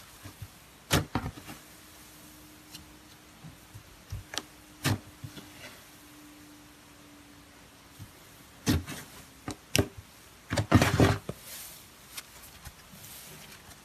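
Cloud slime squeezed and pulled by hand, making scattered sharp crackles and pops, with a dense run of crackles near the end. A faint steady hum runs under the first half.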